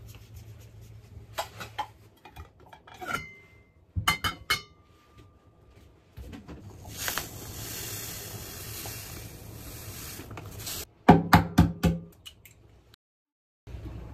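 Granulated sugar poured from a paper bag into a glass measuring cup, a steady hiss lasting several seconds, between a few ringing glass and dish clinks before it and a quick run of loud knocks and clinks after it.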